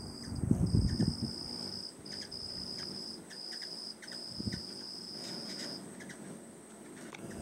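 Insects trilling steadily in long high-pitched runs with brief gaps, over a constant fainter high whine. Loud low whirring bursts come and go as hummingbirds' wings hum close by, the loudest about a second in and a shorter one past the middle.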